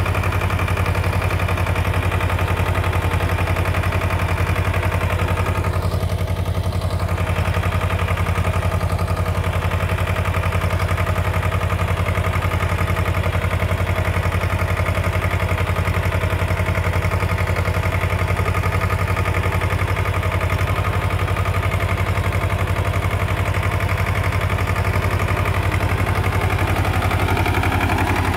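Tractor engine idling steadily, with a slight rise in revs near the end.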